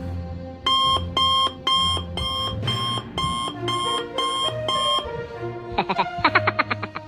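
Alarm clock beeping, a high-pitched beep about twice a second, nine beeps in all, over background music. Near the end a different, fast rattling buzz starts.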